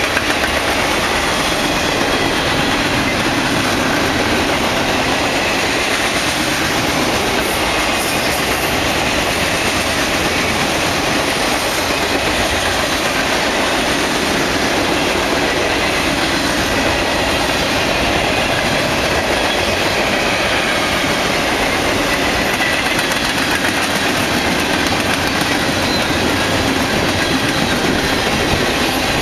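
Mixed freight train's cars rolling past close by at about 60 mph: a steady, loud rush of steel wheels on rail.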